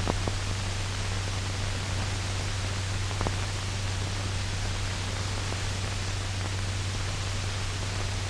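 Steady hiss and low hum of an old film's optical soundtrack, with two faint clicks: one at the start, one about three seconds in.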